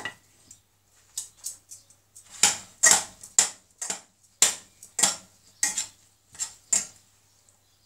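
Metal kitchen tongs clinking and scraping against a stainless steel saucepan as rice noodles are tossed with soy sauce: about a dozen sharp, uneven clinks, starting about a second in.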